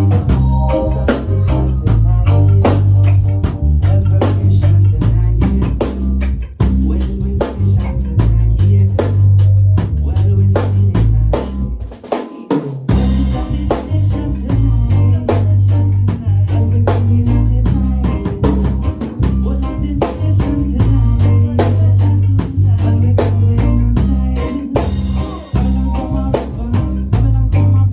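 Live band playing an instrumental passage: drum kit with snare and rimshot hits over a heavy bass line. About twelve seconds in the bass drops out for a moment, then the band comes back in with a cymbal crash.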